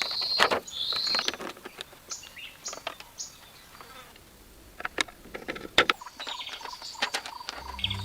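Forest ambience: a high insect trill fades in the first second, then short bird chirps, with several sharp knocks scattered through. Music with low notes comes in near the end.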